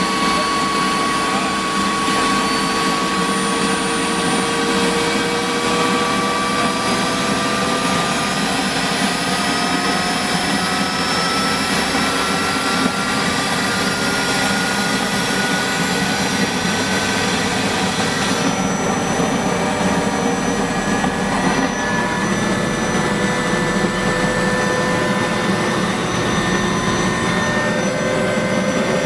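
Mi-2 helicopter's twin GTD-350 turboshaft engines and rotor running, heard from inside the cockpit: a steady loud roar with a turbine whine that slowly rises in pitch as the revs come up.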